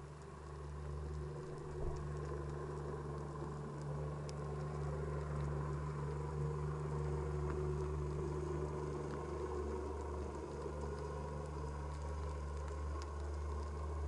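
Boat engine and propeller heard underwater: a steady droning hum that grows louder over the first couple of seconds and then holds, as a boat passes close by. Faint scattered crackling clicks of the sea sit under it.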